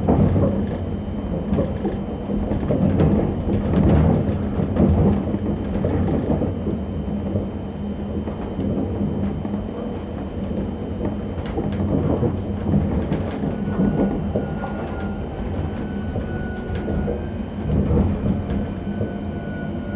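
ČD class 640 RegioPanter electric multiple unit running over the rails, a steady low rumble from the running gear with scattered sharp clicks as the wheels pass over points and rail joints. A faint steady tone comes in about halfway through.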